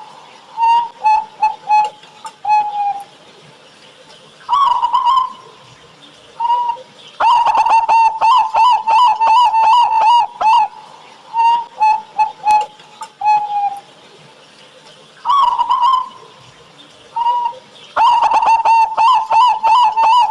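Zebra dove (perkutut) cooing: phrases of quick ringing notes on nearly one pitch, broken by pauses, with two long runs of rapid notes, the first about seven seconds in and the second near the end.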